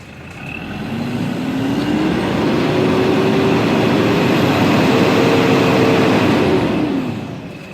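Toyota Prado four-cylinder diesel engine revved up from idle, its pitch climbing over about two seconds, held at high revs for about four seconds, then let drop back toward idle near the end: a free-rev done to check for black exhaust smoke.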